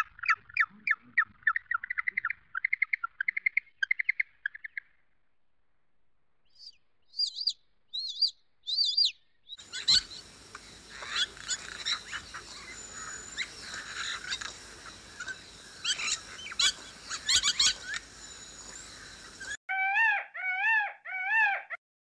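Bird calls in several short spells: a rapid chattering series for the first few seconds, a few high chirps, then about ten seconds of scattered calls over a steady outdoor hiss. Near the end comes a run of repeated calls that rise and fall in pitch.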